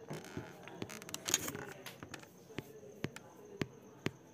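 Faint, irregular small clicks and ticks, a cluster of them about a second and a half in, over low hiss.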